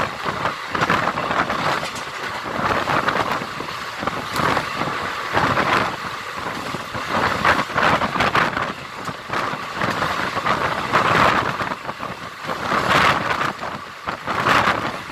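Indian Railways passenger train running at speed: wheels clattering on the rails under a rush of wind, swelling and easing every second or two.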